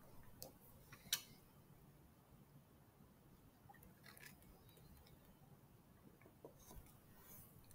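Near silence with a few faint, sharp clicks, the loudest about a second in.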